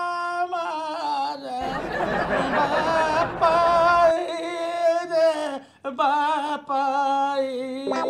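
A person wailing in a drawn-out, sing-song lament of mourning: long held, wavering notes that slowly sink in pitch, turning rough and sobbing for a couple of seconds early on.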